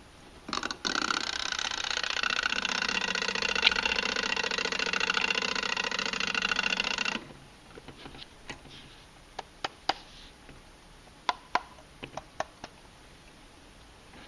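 Vintage alarm clock's alarm going off: a rapid, steady ringing for about six and a half seconds that stops suddenly. A few scattered sharp clicks follow.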